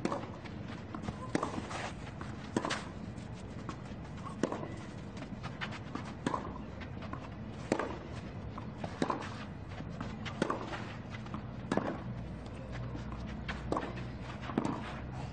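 Tennis ball struck back and forth with rackets in a long baseline rally, about a dozen sharp hits roughly every second and a half.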